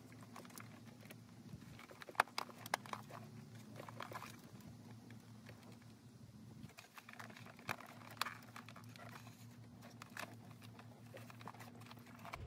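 Plastic fuse box housing and wiring connector being handled and fitted into place: scattered light clicks and knocks, with a few sharper clicks about two seconds in and again around eight seconds.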